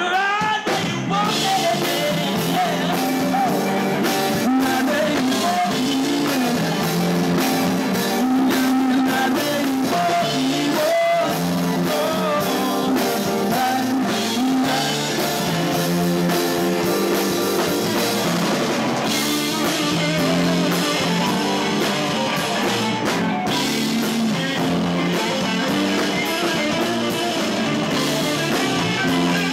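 Live rock band playing electric guitars and a drum kit, a steady loud groove with a wavering melody line over it.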